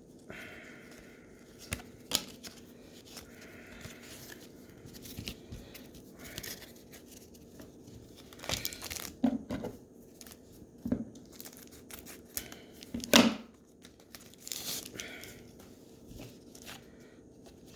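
Trading card pack wrappers being torn open and crinkled by hand, with scattered crackles and several sharp rips, the loudest about two-thirds of the way through.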